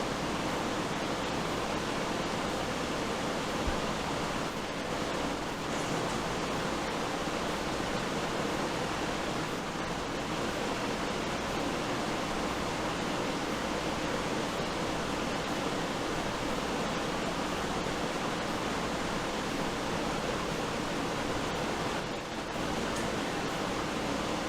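A steady rushing hiss with no rhythm or pitch, with one brief click about four seconds in.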